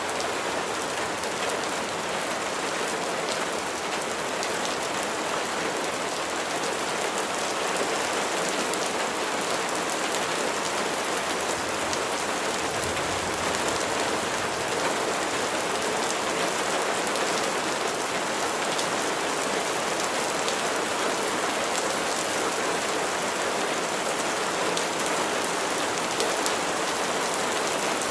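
Steady rain falling on a surface, a dense hiss of drops with fine individual drop ticks, and a brief low rumble about halfway through.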